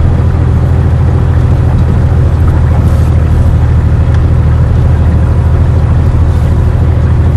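Air-cooled flat-six engine of a 1978 Porsche 911SC, heard from inside the cabin, running at an even speed as a loud, steady drone that holds one pitch.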